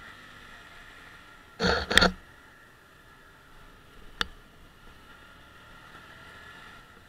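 Hyosung GT125's small V-twin engine running quietly at low speed, with a loud double knock about two seconds in and a single sharp click a couple of seconds later.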